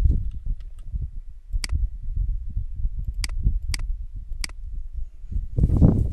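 Computer mouse clicking four single times, spread over a few seconds, over a low steady rumble. Near the end a short, loud rush of noise.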